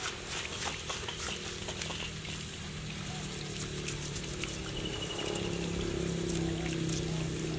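Water from a garden hose spraying and splashing over a brush cutter as it is washed down, with small sharp spatters. A steady low hum runs underneath, rising slightly about five seconds in.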